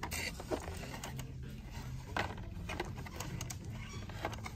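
Light scattered clicks and rustles of plastic blister-carded die-cast toy cars being handled on metal peg hooks, over a steady low background hum of the store.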